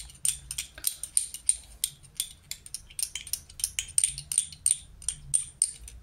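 Metal teaspoon stirring in a small drinking glass, clinking against the glass about four times a second, stopping near the end. It is mixing powdered hand-rearing formula with boiled water into a thin, watery feed.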